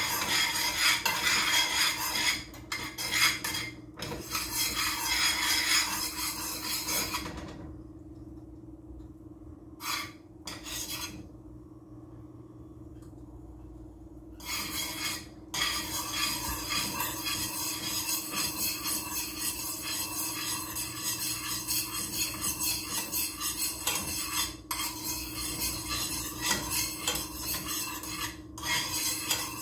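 A spoon stirring and scraping food around in a frying pan, with clinks of utensil on pan. The stirring pauses for several seconds in the middle, then picks up again steadily, over a constant low hum.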